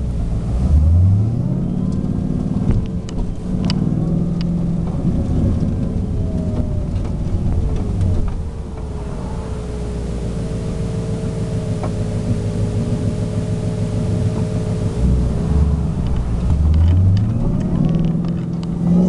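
2015 Ford Mustang engine revving and accelerating several times, with a steadier stretch in the middle. A thin whine rides over the engine note and rises and falls with engine speed: supercharger-style whine from a twin-screw sound tube kit.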